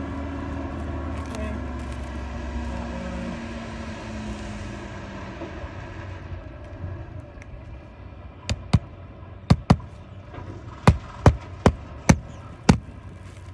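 Hammer driving roofing nails into asphalt shingles: about nine sharp strikes from about eight seconds in, some in quick pairs. Before that, a passing vehicle's engine runs steadily and fades away over the first six seconds.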